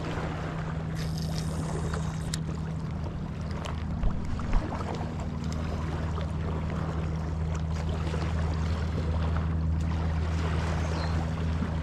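A boat's motor runs steadily with a low hum under a wash of noise. Two short knocks come about four seconds in.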